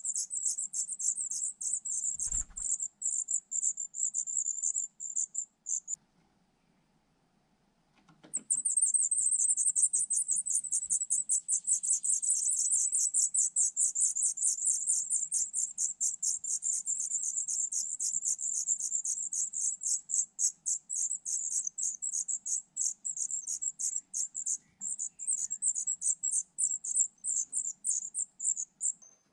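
Songbird nestlings begging at the nest: a fast, high-pitched chirping that stops for about two seconds some six seconds in, then resumes.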